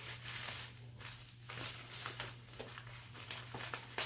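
Packaging being unwrapped by hand: irregular crinkling and rustling of wrapping material.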